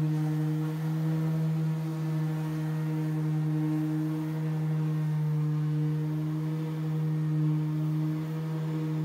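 Electric random orbital sander running steadily while pressed against a fiberglass boat hull, sanding it down: one even, unbroken hum.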